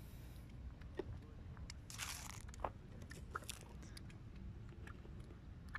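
Faint outdoor ambience: a steady low rumble with scattered light clicks and crackles, and a short rush of noise about two seconds in.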